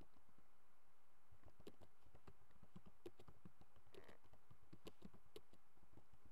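Faint typing on a computer keyboard: a quick, uneven run of key clicks that starts about a second and a half in.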